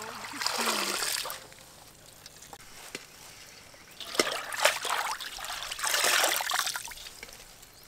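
Water splashing and trickling as shredded cabbage is rinsed by hand in a basin of water and lifted out dripping. It comes in two spells, about half a second in and again from about four to seven seconds in, with a sharp click just after four seconds.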